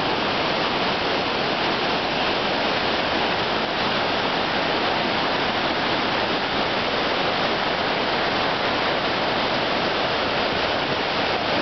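Iguazu Falls: the steady, unbroken rush of a huge volume of water plunging into a mist-filled gorge, heard from right at the brink.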